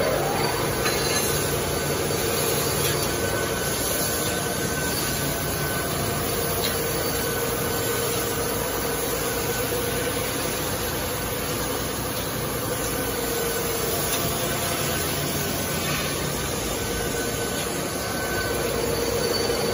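HEM 1200A automatic horizontal band saw running, its blade cutting through a metal tube under coolant: a steady machine whir with a held mid-pitched tone and a low hum underneath.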